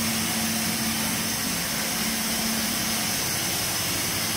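A running machine's steady drone: a constant low hum under an even hiss.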